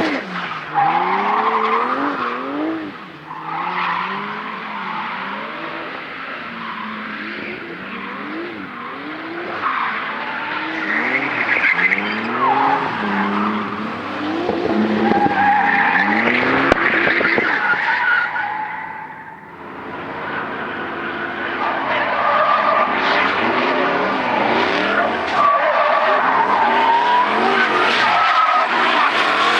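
Drift car sliding: the engine revs rise and fall again and again as the throttle is worked, over screeching tyres. About two-thirds through the sound dips briefly, then another stretch of engine revving and tyre screech follows.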